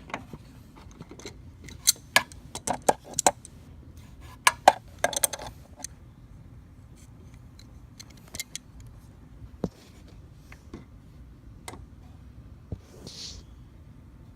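Pliers working at a radiator hose clamp: sharp metal clicks and scrapes, coming in quick clusters a couple of seconds in and again around five seconds, then scattered single ticks.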